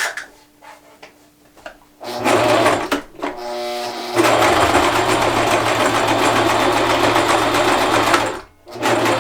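Sewing machine stitching through thick denim. After a couple of seconds with only a few light clicks, it runs in a short burst, pauses, then runs steadily for about four seconds, stops, and starts again near the end.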